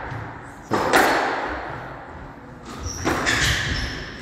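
Squash ball cracking off rackets and the walls during a rally, sharp hits that ring on in the court: two close together about a second in, then a quicker cluster about three seconds in. Brief high shoe squeaks on the wooden floor around the later hits.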